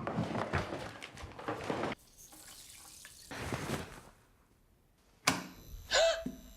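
Water running, as from a tap, in two stretches, then a sudden sharp knock about five seconds in, followed by a short pitched squeal that glides and breaks off.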